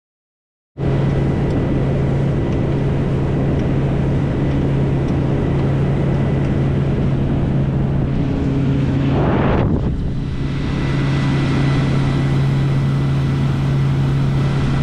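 Silent for the first second, then a Suzuki 100 hp outboard motor running steadily with a boat under way, a low steady drone under wind buffeting the microphone and water rushing past the hull. A brief rush of noise comes about nine and a half seconds in.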